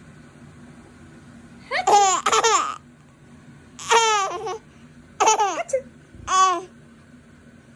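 A small child laughing in four short bursts of high-pitched giggles, each falling in pitch.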